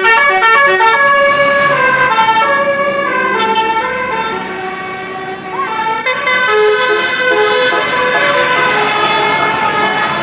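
Bus musical air horn (telolet horn) playing a fast melody of held, stepping notes. It dips briefly about five and a half seconds in, then carries on.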